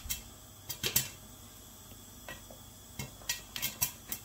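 Popcorn kernels popping in a covered frying pan with a glass lid: about a dozen sharp, irregular pops, some coming in quick clusters.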